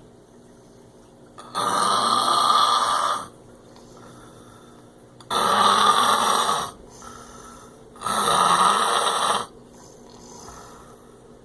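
A man snoring heavily in his sleep: three long, loud snores, each about a second and a half, coming roughly every three to four seconds.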